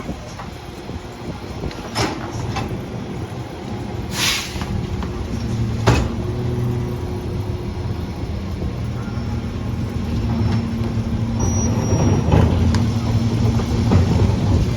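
CNG garbage truck engine running steadily, with a sharp clank about two seconds in, a short hiss of air about four seconds in, and a louder clank near six seconds. The engine gets louder in the second half.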